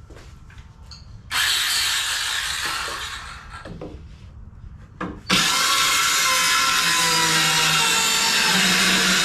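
Ryobi power saw cutting a half-inch plywood sheet: a loud run of about two seconds that dies away, then after a click the saw starts again about five seconds in and runs steadily through the wood.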